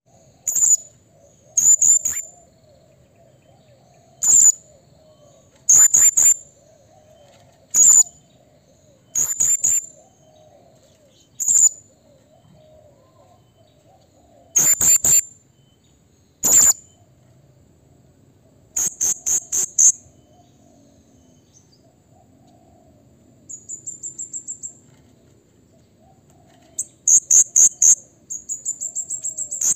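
Male blue-crowned hanging parrot (serindit) calling: sharp, high-pitched calls every second or two, then quick runs of repeated calls near the end.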